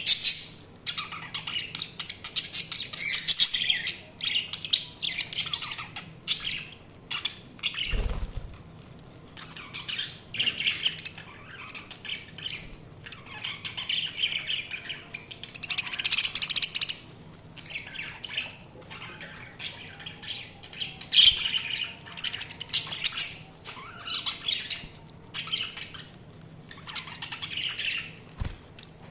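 Budgerigars chirping and chattering in bursts of squawky calls, with short pauses between them. A brief low thump comes about eight seconds in.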